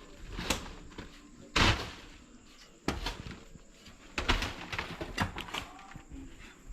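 Shovel work in sand: a run of irregular scrapes and dull thuds, about half a dozen in all, the loudest about one and a half seconds in.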